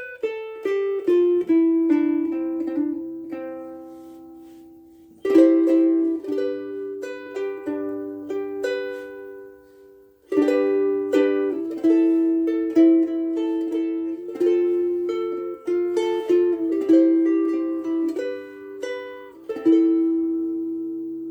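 Soprano ukulele played solo in three short phrases of plucked melody notes over ringing chords, each note sounding clearly and dying away.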